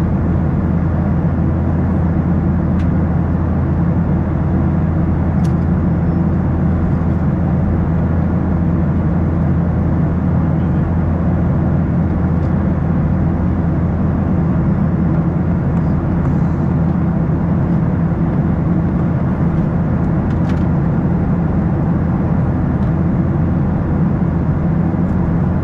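Steady cabin noise of a Boeing 737-800 in flight, heard from a window seat beside the wing: the deep, even drone of its CFM56-7B turbofan engines and rushing air, with a few faint ticks.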